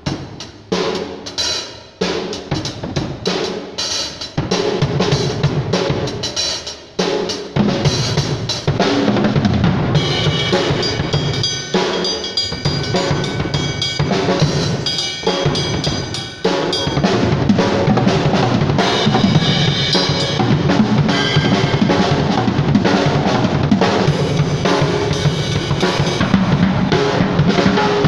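Acoustic drum kit being played: separate hits and short fills for the first several seconds, then continuous playing on bass drum, snare and ringing cymbals, with a brief break about sixteen seconds in.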